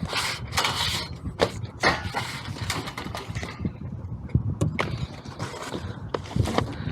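Irregular knocks, clicks and rustling from hands working on an HVAC unit, over a low steady hum.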